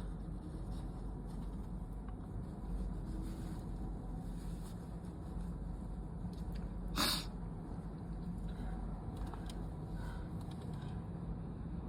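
A person's short, sharp sniff about seven seconds in, between sneezes of a cold or allergy sneezing fit, over a steady low background hum.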